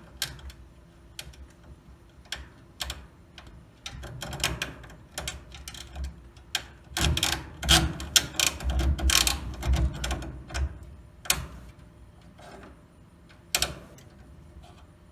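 Irregular light clicks and knocks of garage door spring hardware being handled as the torsion spring's safety cable is fitted and secured, with a busier run of clatter and low thumps about seven to eleven seconds in.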